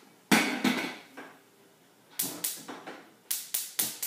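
A clank of a lidded saucepan set on a gas stove, then two runs of sharp clicks about four a second: the burner's igniter sparking to light the gas.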